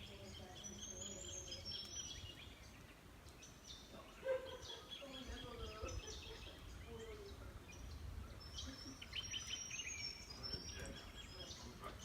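Several birds calling in bushland: high chirps and trills near the start and again late on, and lower warbling phrases in the middle.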